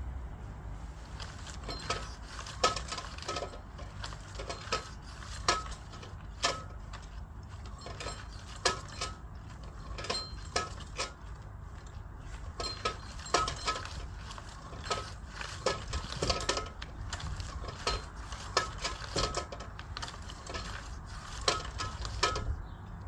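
Small metal parts clicking and clinking irregularly, often a few times a second, each strike with a short ring, as the bell's fittings are worked on by hand.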